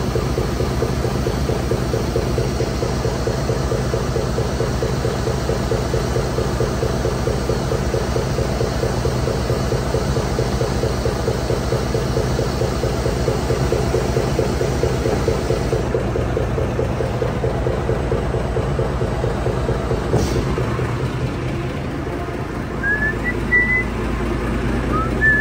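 Foden truck's diesel engine running steadily at idle while warming up, with an even pulsing throb. The high hiss drops away about two-thirds of the way through, and a few short high squeaks come near the end.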